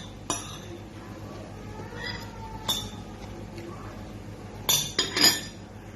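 Tableware clinking during a meal: sharp, ringing clinks, one early and one in the middle, then a quick cluster of louder clinks near the end.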